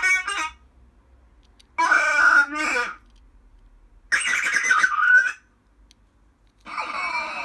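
Recorded Chewbacca (Wookiee) growls from the CommTech chip's sound set played back: three separate calls of about a second each with short pauses between, the last, near the end, noisier with falling pitches.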